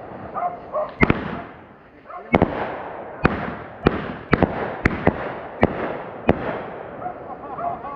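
Fireworks going off in a quick series of sharp bangs, about nine in eight seconds at uneven spacing, each fading out in a short echoing tail.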